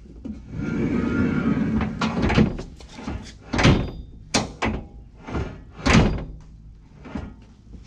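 Steel sliding cargo tray rolling along its rails, then a string of about eight hard clunks as it is shoved back and forth against its stop. The latch is not catching, which the installers put down to the tray frame being out of square.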